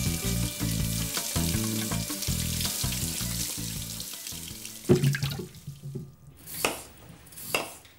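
Kitchen tap running while potatoes are peeled and rinsed under it, with background music that fades out about four seconds in. A sharp knock comes about five seconds in, followed by a few short, noisy handling sounds.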